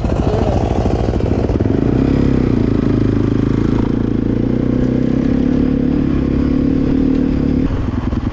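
Honda CRF450 dirt bike's single-cylinder four-stroke engine running under way, holding a steady pitch under load for several seconds, then easing off near the end.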